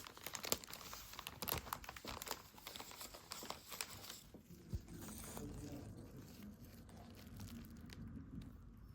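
Packaging crinkling and rustling as it is handled and unwrapped, dense crackles for about four seconds, then softer, quieter handling.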